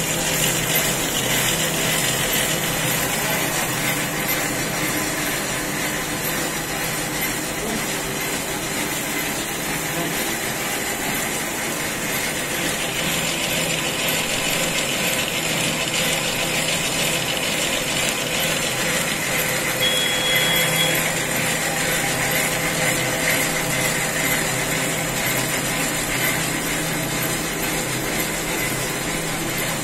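Variable data numbering and perforating machine (Origami VDP 15) running steadily, feeding paper forms through its print heads with an even mechanical whir.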